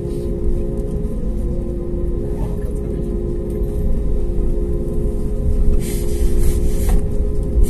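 Airbus A320neo cabin noise over the wing during taxi: the Pratt & Whitney PW1100G geared turbofan engines run at taxi power with a steady hum of several tones over a low rumble. There is a brief burst of hiss about six seconds in.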